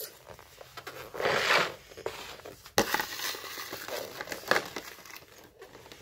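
Slime being squeezed and worked by hand, giving irregular crackling, crinkling squishes with a sharp click about three seconds in.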